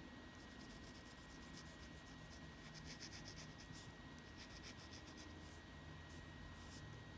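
Faint scratching of a pen tip on paper in quick, short back-and-forth strokes as an area of a drawing is hatched in with colour.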